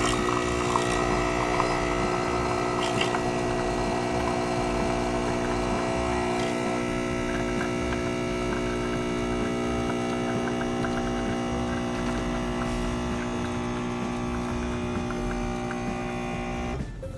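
Capsule espresso machine's pump humming steadily as it brews a shot, with coffee running into the cup during the first several seconds; the pump cuts off suddenly near the end.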